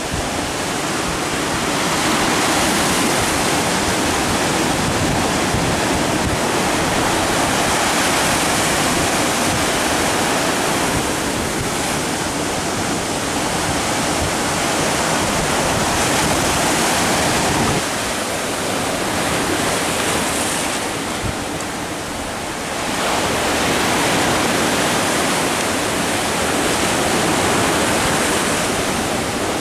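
Sea surf breaking and washing over a sandy, rocky shore: a steady loud rushing that swells and eases as the waves come in, dropping back briefly about two-thirds through before the next wave builds.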